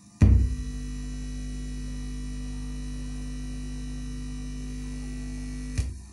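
Steady mains hum from a home sound system's amplifier and speakers. It is switched in with a sharp pop about a quarter of a second in, and cut off with another pop near the end.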